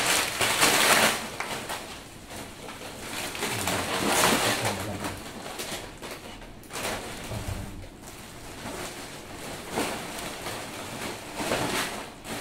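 Irregular rustling and scraping of packaging materials being gathered up and put away, in several bursts with quieter gaps between.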